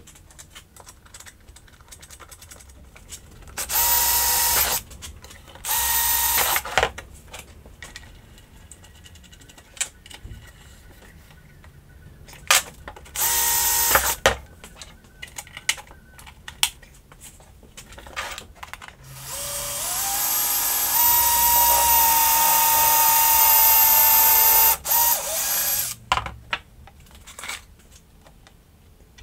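Metabo cordless drill running into plywood in three short bursts, each spinning up quickly. About 19 s in comes one longer run of some six seconds that winds up to speed, holds a steady whine and stops. Small knocks of handling wood and tools come in between.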